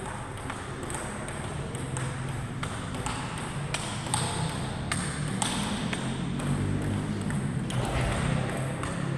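Table tennis ball clicking off rubber bats and the table during rallies, in a quick, uneven series of sharp ticks.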